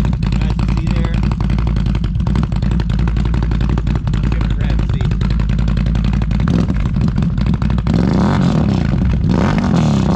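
Can-Am Renegade ATV's V-twin engine running loud through RJWC dual aftermarket exhausts: a steady idle, then revved up and back down a couple of times in the last few seconds.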